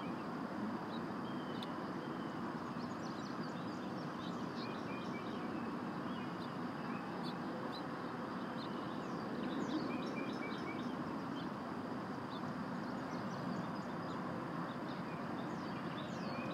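Small birds chirping and twittering in scattered short notes over a steady outdoor background noise.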